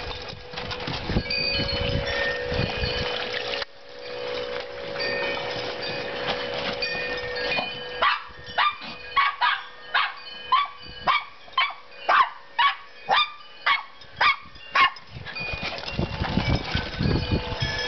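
A small dog barking in a quick run of about a dozen sharp barks, roughly two a second, starting about eight seconds in and stopping near the end. Rustling and wind rumble on the microphone run before and after the barks.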